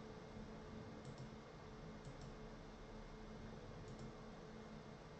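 Faint computer mouse clicks, three pairs of quick clicks, over a steady low electrical hum.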